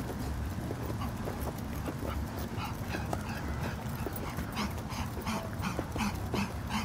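Pug panting hard in a quick, even rhythm of about four breaths a second, growing stronger in the second half.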